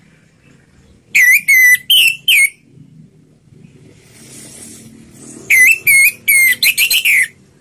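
Orange-headed thrush (anis merah) singing in the loud, clear 'ngeplong' style: two short phrases of loud whistled notes. The first phrase starts about a second in with four notes, and the second starts about five and a half seconds in with six or seven quicker notes.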